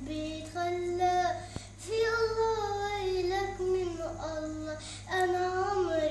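A young girl singing solo, holding long notes that bend and slide in pitch, with short breaks for breath between phrases.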